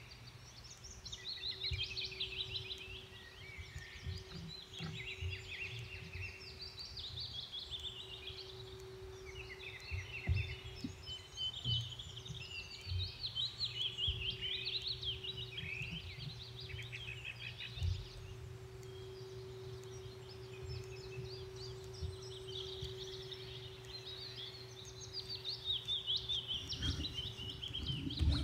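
Wild birds singing almost without pause in quick chirping phrases, over a steady faint hum. Soft knocks and rubbing come from hands working a wooden hatchet handle on a board.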